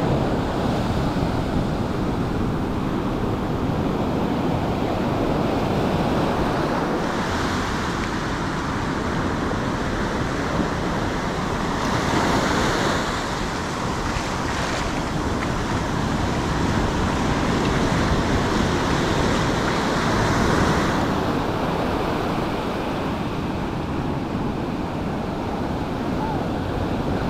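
Ocean surf breaking and washing up onto a sandy beach. The steady rush swells louder a few times as waves come in.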